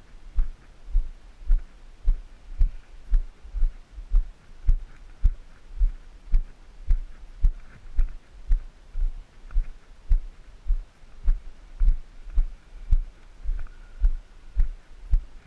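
Footsteps of someone walking at a steady pace, picked up as dull low thumps about twice a second through a body-worn action camera.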